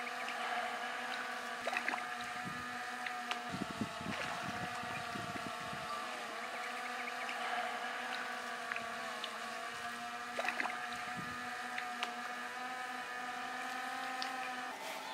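A small motor's steady hum, made up of several even pitches that waver slightly now and then. Over it come scattered light splashes and knocks from a paddle working the water, in clusters about 2, 4 and 10 seconds in.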